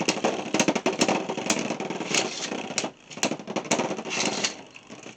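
Two Beyblade X spinning tops whirring and grinding on a plastic stadium floor, with many sharp clicks as they collide. The sound dies down near the end as the tops lose spin.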